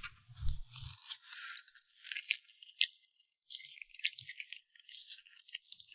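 Cream cake being handled and scooped up for eating: soft crinkly scraping with scattered small clicks.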